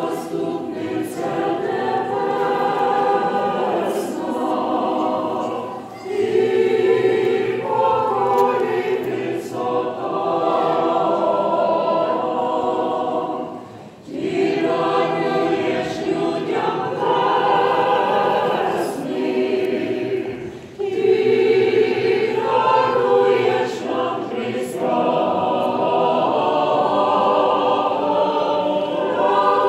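Church choir singing liturgical chant in long phrases, with short breaks between phrases about every six to eight seconds.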